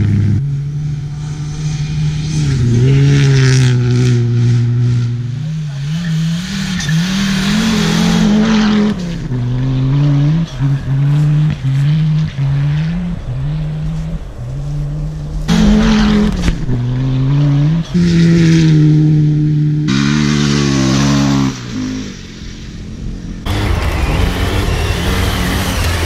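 Rally car engines at full throttle during several separate passes on a dirt stage, revving hard through the gears: the pitch climbs and drops back about once a second in repeated quick upshifts.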